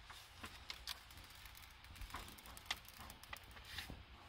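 Faint, scattered clicks and rustles of a thin plastic screen-protector film being handled and pulled off its backing sheet.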